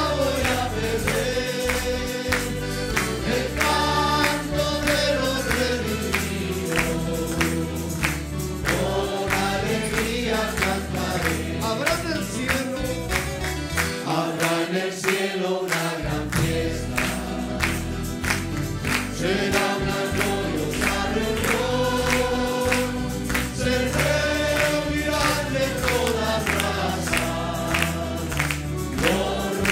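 Congregation and singers performing a Spanish-language gospel song with band accompaniment, hands clapping along to a steady beat. The bass drops out briefly about halfway through.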